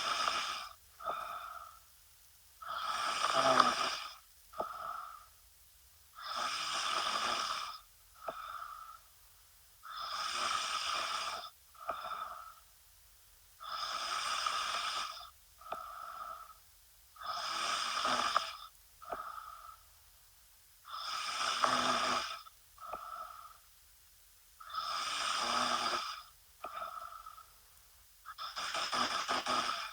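A woman snoring in a steady sleeping rhythm. Each breath gives a long snore of about a second and a half, then a short, softer sound, repeating about every three and a half seconds.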